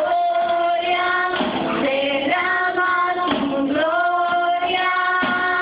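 High female voices singing a slow hymn with long held notes.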